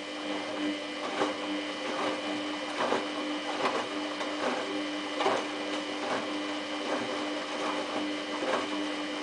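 Samsung WF8804RPA front-loading washing machine running: a steady motor hum with a high whine over it, and a light knock repeating about every 0.8 seconds.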